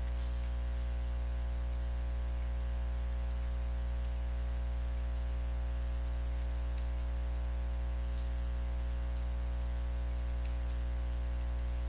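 Scattered keystrokes on a computer keyboard, a few faint taps spread out with pauses between them, over a steady low electrical hum.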